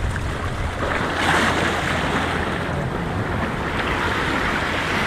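Ocean surf washing against the rocks of a jetty: a steady rush of water, with a louder surge about a second in. Wind on the microphone adds a low rumble underneath.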